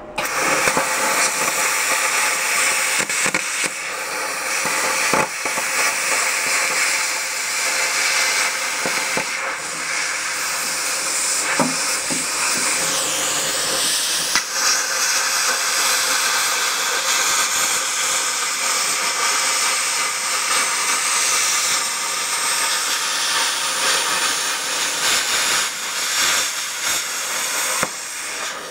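Air plasma cutter cutting sheet steel: a loud, steady hiss of the air-fed arc that starts abruptly and cuts off near the end.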